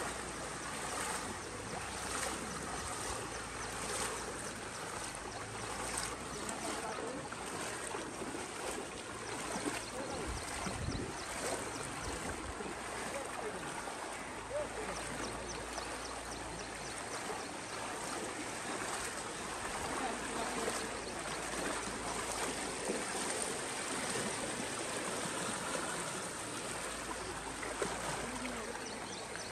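Steady rushing of floodwater flowing fast and shallow along a village lane, with faint voices of people in the background.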